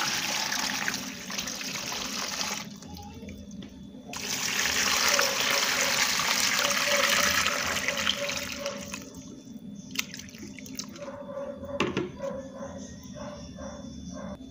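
Water pouring from a plastic jug into a stainless steel pot of husked corn: a first pour in the opening couple of seconds, then after a brief break a second, louder pour that tails off about eight seconds in. Two sharp knocks follow.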